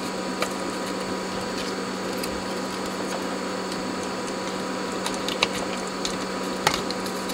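Steady hum and hiss of powered bench electronics, with a few light clicks and taps, mostly in the second half, as a circuit board is handled and pushed back into place.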